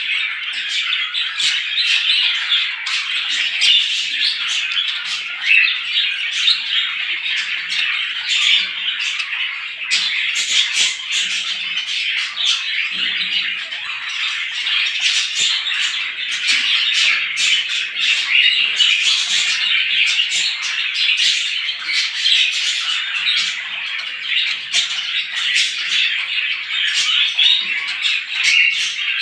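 A flock of small birds chirping and chattering together in a dense, unbroken chorus of overlapping high calls.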